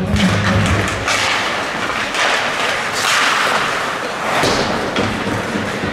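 Ice hockey play on an indoor rink: skate blades scraping and carving on the ice in repeated short swishes, mixed with thuds and knocks of sticks and puck. Arena music fades out within the first second as play begins.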